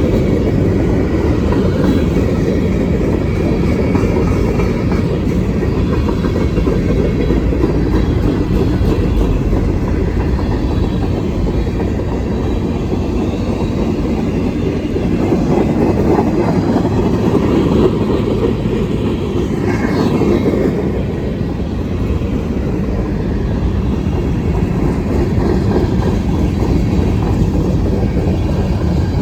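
Freight train cars rolling past in a steady, continuous rumble of wheels on rail.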